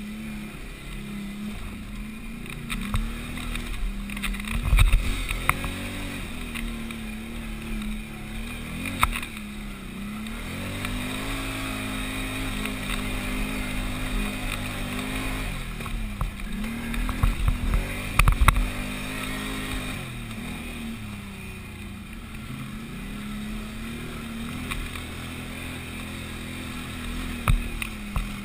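Can-Am 500 XT ATV's V-twin engine working uphill on a rough trail, its pitch rising and falling with the throttle. Short knocks and thuds from the machine hitting bumps, the loudest about five seconds in and again around seventeen to eighteen seconds in.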